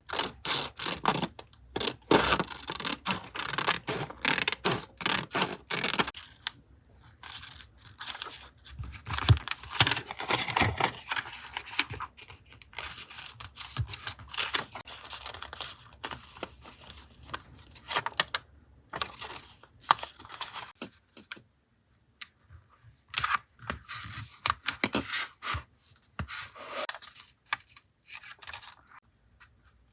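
Close-up paper crafting for a journal collage: paper being handled, torn and cut, in irregular bursts of crinkling, scraping and small taps with a few short pauses.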